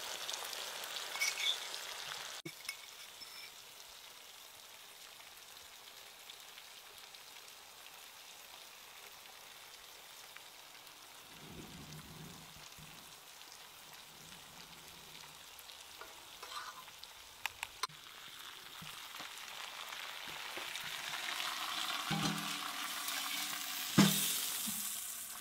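Masala-coated pomfret frying in oil on a hot iron tawa: a steady, fairly quiet sizzle that grows louder over the last few seconds. Near the end a single sharp metal clank as a steel pot is set upside down over the fish on the griddle.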